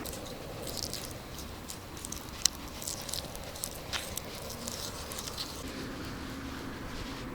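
Light handling noises: scattered small clicks and taps, with one sharper click about two and a half seconds in.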